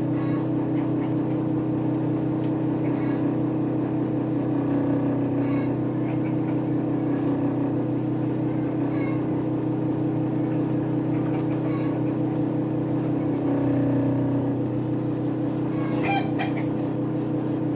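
Homemade dust collector blower running steadily, a motor hum with a constant pitch, while chickens cluck faintly a few times in the background.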